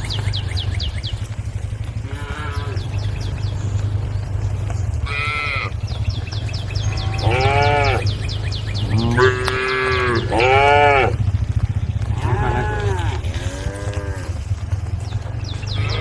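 Cows mooing: a series of short calls, each rising and then falling in pitch, some coming in pairs, over a steady low hum.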